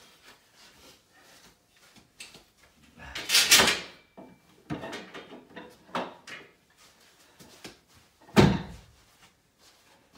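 Handling knocks and scrapes: a loud rustling scrape about three seconds in, a few light knocks, and a heavy thump near the end.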